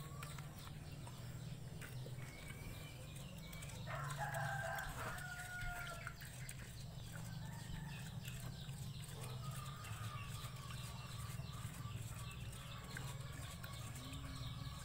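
Domestic chickens clucking, with a rooster crowing once about four seconds in, over a steady low hum.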